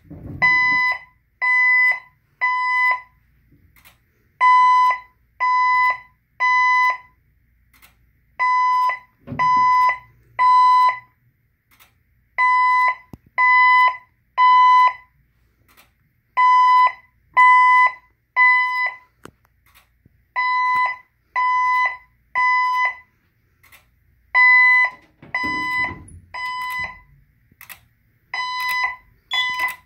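Fire alarm speaker strobes sounding the evacuation tone in the temporal-three pattern: three short beeps of a steady tone, then a pause, repeating about every four seconds. This is the second-stage general evacuation signal, sounding between the evacuation voice messages.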